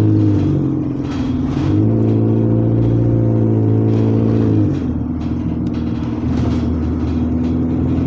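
Diesel bus engine heard from inside the moving bus, running under load. The engine note drops about half a second in, rises again near two seconds, and drops once more near five seconds, as the bus changes gear or the driver eases off the throttle.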